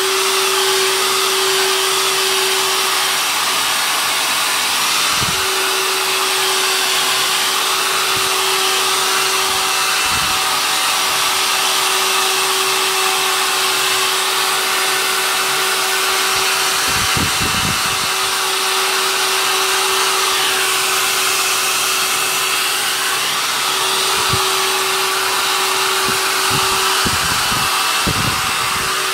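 Handheld hair dryer blowing steadily with a constant hum, heat-drying the wetted back of a slack canvas to shrink it tight. A few soft knocks from handling come through now and then.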